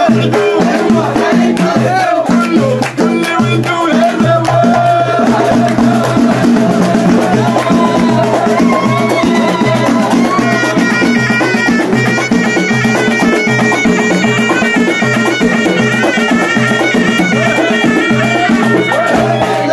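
Moroccan folk troupe playing live: frame drums and hand drums keep a steady repeating beat under group singing. From about halfway, a reed pipe (ghaita) carries a stepped melody over the drums.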